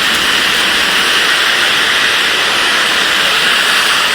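Steady, loud hiss of outdoor storm noise, even throughout, with no distinct events.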